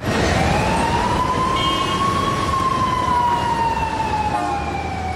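A siren-like wail: one slow rise in pitch over about two seconds, then a long, slow fall, over a low rumble.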